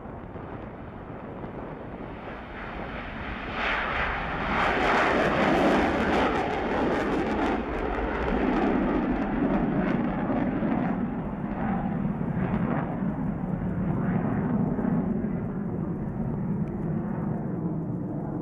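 Su-30SM fighter's twin AL-31FP turbofan engines at high power for takeoff, the jet roar swelling loud about three and a half seconds in, with crackling, then holding strong as the aircraft climbs away.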